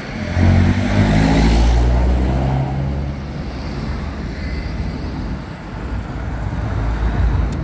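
A car drives past close by, its engine note dropping as it goes, followed by the steadier rumble of lighter road traffic.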